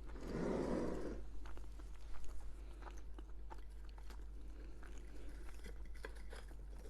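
Close-miked chewing with small crunches and mouth clicks, after a brief muffled sound at the start.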